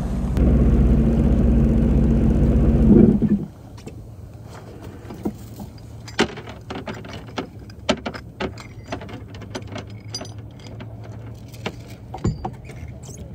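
Sea-Doo jet ski engine running at low speed, then shut off about three and a half seconds in. After that, scattered light clicks and clinks as the anchor is readied and lowered over the side.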